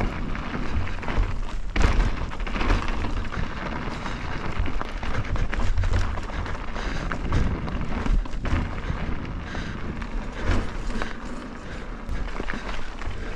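Wind buffeting a camera microphone as a mountain bike rides over a rocky trail, with a steady low rumble and scattered clicks and knocks from the tyres and bike rattling.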